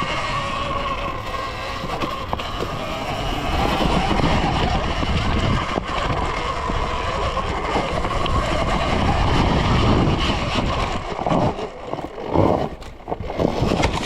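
Surron Ultra Bee electric dirt bike under way on a trail: the steady high whine of the electric motor and drive over a dense rumble of wind and tyres. In the last few seconds it turns uneven, rising and dropping in short surges.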